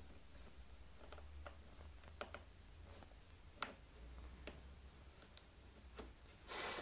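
Faint, scattered light clicks and taps of small hand work on a guitar neck: fingers and a small metal part being fitted into a hole at the headstock end. A brief rustle comes near the end, over a low hum.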